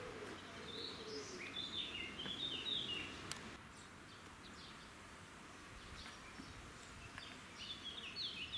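A small bird singing runs of quick high chirping notes, for the first few seconds and again near the end, over a steady outdoor hiss. A single sharp click sounds about three seconds in.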